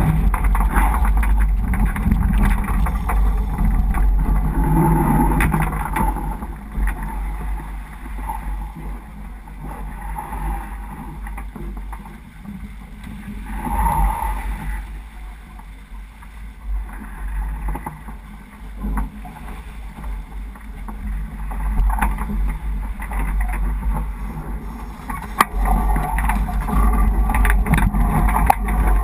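Wind buffeting the microphone of a boom-mounted camera on a racing sailboat, with water rushing along the hull and scattered small knocks from gear on deck. It eases off for a long stretch in the middle and grows louder again near the end.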